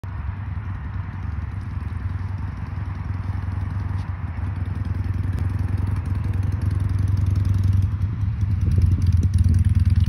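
Wind buffeting the microphone: a low, gusty rumble that grows louder toward the end.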